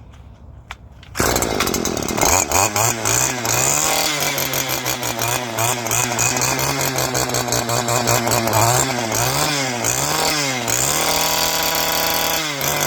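Stihl FS 94 string trimmer engine starting up about a second in and running at high speed, revved down and back up several times near the end. It is running with its muffler's clogged exhaust screen removed, the fix for its stalling and lack of power.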